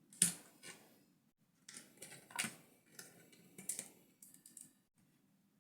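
Hard plastic LEGO pieces being handled, giving irregular clicks and taps, about a dozen over four seconds and then stopping.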